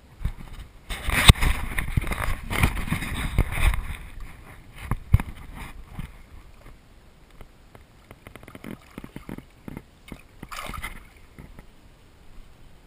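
Water splashing and sloshing as a caught bass is lowered into the water by hand and released. The splashing is loudest in the first few seconds, with a sharp knock a little later and a short splash near the end.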